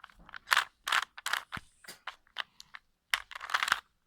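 A plastic Rubik's cube's layers being twisted by hand: an irregular run of quick clicky clacks, loudest about half a second to a second and a half in and again around three seconds in.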